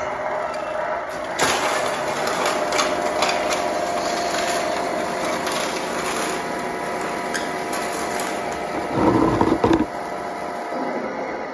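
Electric motor and gearbox of a 1/14 Tamiya Grand Hauler RC semi truck whining under load as it pulls an RC4WD Intimidator pull sled across a dusty concrete floor, tires scrabbling and the sled scraping behind it. A louder rumbling stretch comes near the end.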